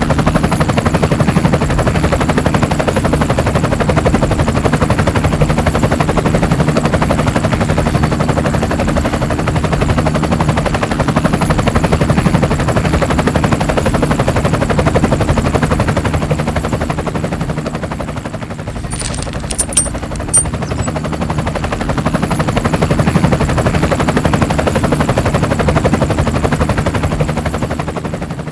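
A small engine running steadily with a fast, even firing pulse. A few short clicks come about nineteen to twenty seconds in.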